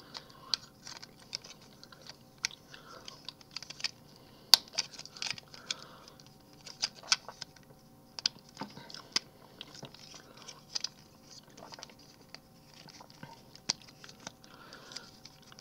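Plastic action-figure parts being handled and fitted together: irregular small clicks and snaps, with one sharper click about four and a half seconds in.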